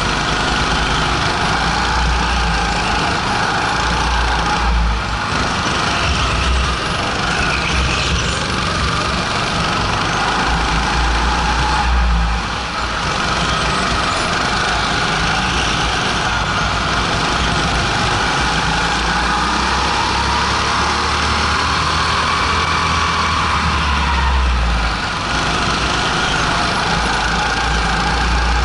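Go-kart engine running at speed, heard from on board the kart. It runs loud and steady, its pitch sagging and rising again a couple of times, with a low rumble that comes and goes underneath.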